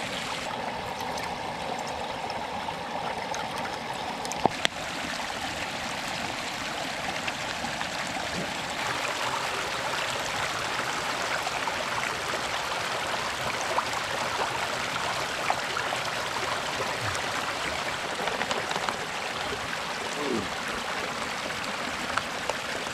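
A river running steadily, the rushing of the water rising a little about nine seconds in, with one short knock about four and a half seconds in.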